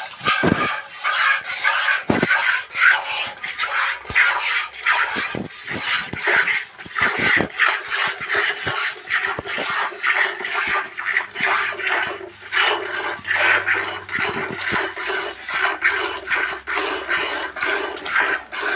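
Desi cow being milked: jets of milk hissing into a pail in a quick, uneven rhythm.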